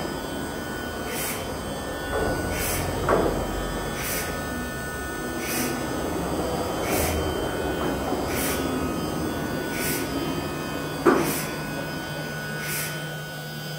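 Thermwood five-axis CNC router moving its table and tilting its head, the drives giving a steady hum. A soft tick comes about every second and a half, with a knock about three seconds in and another near the end.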